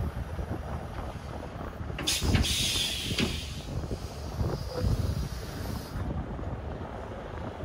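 Semi-truck air brakes releasing: a sudden hiss of compressed air about two seconds in that fades away over about four seconds, over a steady low diesel-engine rumble.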